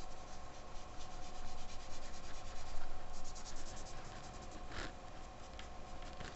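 Soft pastel stick scratching back and forth on drawing paper in short repeated strokes, laying in yellow-gold colour, with a quicker run of strokes about three seconds in.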